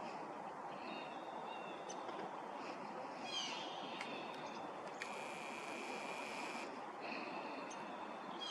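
Pondside outdoor ambience: a steady background hiss with small birds chirping and calling repeatedly, including a quick run of descending notes about a third of the way in. A little past the middle, a harsh buzzing sound lasts about a second and a half, then stops.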